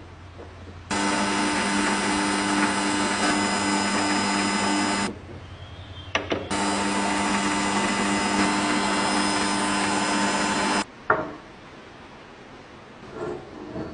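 Small electric motor running at a steady speed in two bursts of about four seconds each, each starting and stopping abruptly. A sharp knock comes just after the second run stops.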